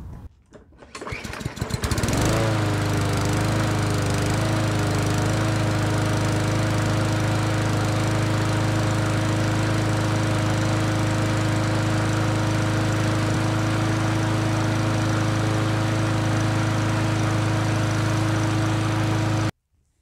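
MTD Yard Machines 20-inch push mower's four-stroke engine starting up after priming: it catches about two seconds in, its speed wobbles briefly and then settles, and it runs steadily and smoothly until the sound cuts off suddenly near the end.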